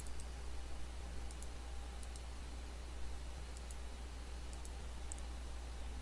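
Faint, scattered computer mouse clicks, about eight of them at irregular intervals, over a steady low electrical hum.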